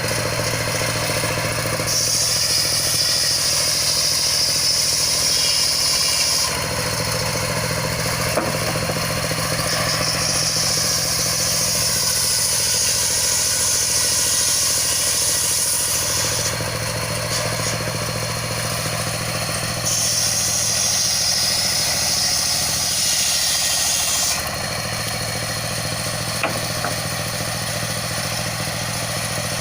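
Circular sawmill running: its engine drones steadily, and three times the big blade cuts through wood, each cut a few seconds of loud high hissing that then stops as the log moves back and forth.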